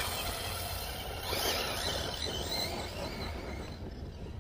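Arrma Typhon 6S RC buggy's brushless motor whining as it drives off across grass, fading with distance.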